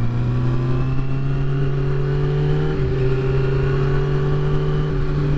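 2009 Kawasaki ZX-6R's 599 cc inline-four engine running at a steady cruise, heard from the rider's seat with wind rushing over the microphone. The engine note shifts slightly in pitch about three seconds in and again near the end.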